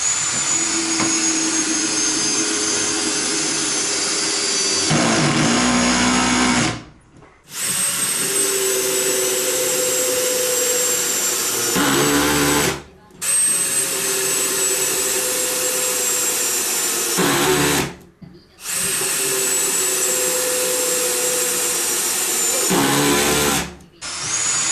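Cordless drill-driver driving screws through a metal joist hanger into a wooden joist: four runs of steady high whine, each about five seconds long. At the end of each run the motor slows and labours as the screw seats, then stops.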